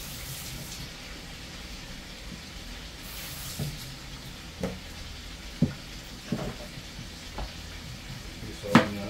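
Kitchen tap water splashing into the sink in short spells, then knocks and taps of a knife and utensils at the sink and on a plastic cutting board, about one a second, the loudest near the end. A steady frying sizzle runs underneath.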